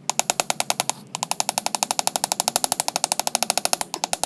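Hammer rapidly striking steel, peening over the pivot rivet of a friction folding knife: about ten ringing metallic taps a second, with a brief pause about a second in.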